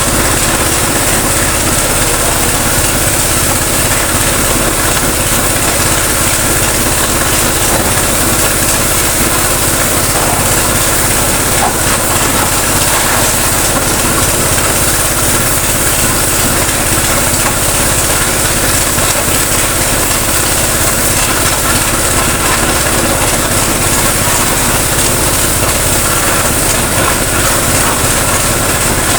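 High-pressure washer running steadily: the Sanchin PS22 plunger pump, driven by a 7.5 HP Asahigo motor, rumbling while the lance sprays a hard, hissing jet of water at about 50 bar.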